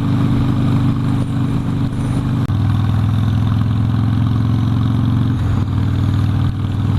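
Harley-Davidson Sportster V-twin engine running under way, recorded from the bike. The engine note changes abruptly twice, about two and a half and five and a half seconds in, the first time with a brief dip in level.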